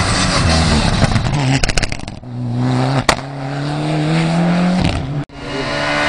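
Rally car engine pulling hard under acceleration, its pitch rising steadily for a few seconds, after a quick run of crackles about a second and a half in. The sound cuts out for an instant near the end.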